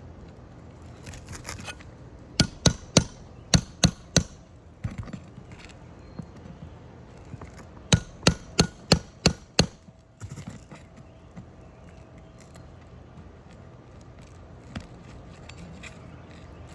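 Hammer striking a nail puller to work it under a roofing nail in a shingle: two runs of about six sharp metal strikes, roughly three a second, a few seconds apart.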